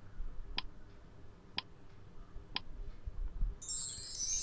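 Countdown-timer sound effect: three clock ticks about a second apart, then a high shimmering chime about three and a half seconds in, marking the reveal of the answer.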